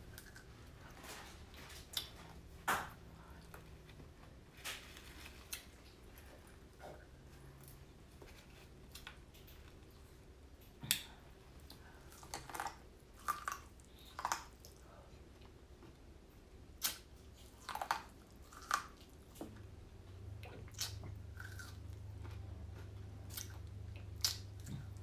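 Close-miked chewing and biting, with irregular wet smacks and crunches, from someone eating corn on the cob.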